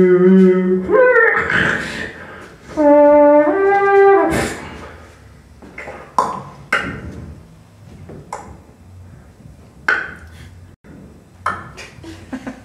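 A trumpet-like horn call: one held note that ends about a second in, then a rising two-note call near the middle. After it come scattered sharp clicks and knocks.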